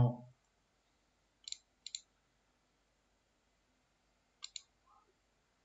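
Computer mouse clicking: two short, sharp clicks close together about a second and a half in, and another about four and a half seconds in, with quiet between.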